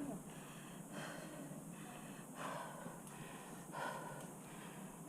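A rock climber breathing hard and audibly in separate heavy breaths a little over a second apart, straining on a hard section of the route.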